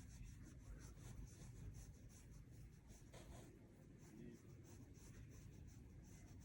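Faint, soft rubbing of a hand stroking a rabbit's fur, repeated in quick even strokes.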